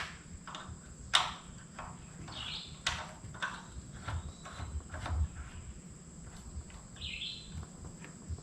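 Scattered clicks and knocks of hand work on a pressure washer, a few sharp ones standing out, with two short high chirps.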